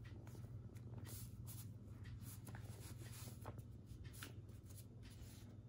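Faint rustling and crinkling of a sheet of paper as it is folded and creased by hand, with short irregular clicks over a low steady hum.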